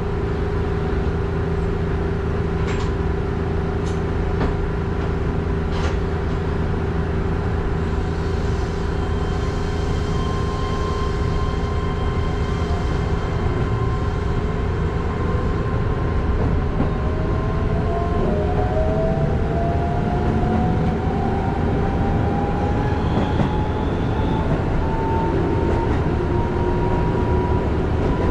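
Keihan electric commuter train heard from inside the cab: a steady electrical hum while it stands at a station. About halfway through, a motor whine rises in pitch as the train pulls away and gathers speed.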